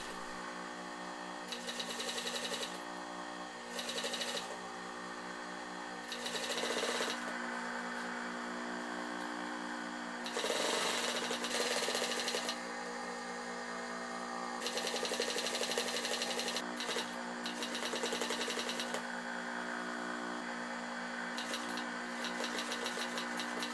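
Sewing machine with a gimp foot stitching cord into strips of material to make gimp welting. It runs in several short spurts of rapid, even stitching over a steady hum.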